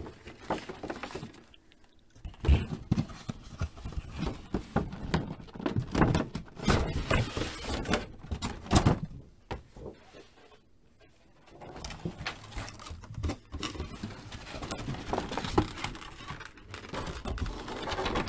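Cardboard box and plastic blister tray being handled as the action-figure packaging is opened and the tray pulled out: irregular scraping, rustling and small knocks, with a short quiet pause about ten seconds in.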